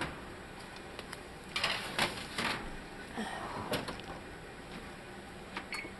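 An oven door being handled and a metal baking sheet slid onto the oven rack: a few short clatters and scrapes about two seconds in, softer knocks after, and small clicks near the end.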